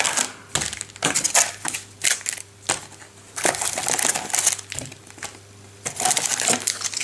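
Foil trading-card packs crinkling and rustling as they are handled and lifted out of a cardboard hobby box, in several spells of handling with short pauses between.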